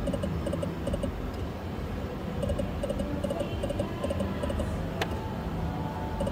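Ruler of Luck video slot machine spinning its reels: quick, evenly repeating electronic blips over a steady casino hum, with a sharp click about five seconds in as the next spin is started.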